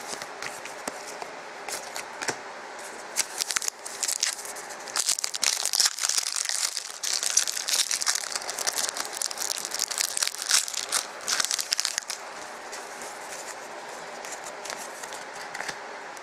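Hockey card pack wrapper being torn open and crinkled by hand: a run of crackling rustles from about three seconds in until about twelve seconds in, then only faint room hiss.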